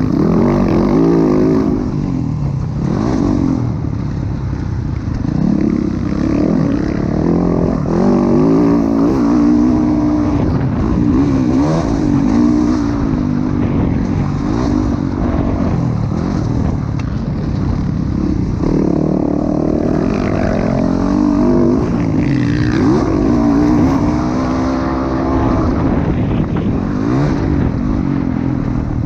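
Motocross dirt bike engine at race pace, repeatedly revving up and falling off as the rider works the throttle and shifts through the corners.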